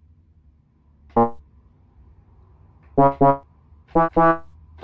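A rooster pecks the keys of a small electronic keyboard, sounding short single notes: one about a second in, then two quick pairs around three and four seconds in.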